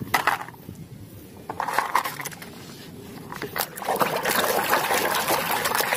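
Hard plastic toys clicking and clattering as one is picked out of a pile. From about four seconds in, water sloshes and splashes in a plastic tub as a hand scrubs a muddy toy.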